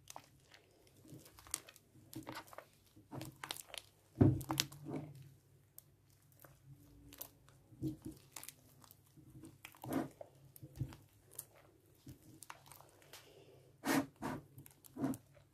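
Green DIY slime, mixed from powder and water, being squeezed and kneaded by hand: an irregular run of short sticky squelches and clicks, the loudest about four seconds in.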